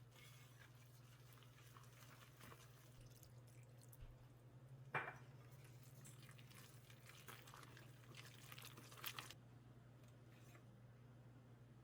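Near silence: room tone with a low steady hum and faint scattered small clicks, one sharper click about five seconds in.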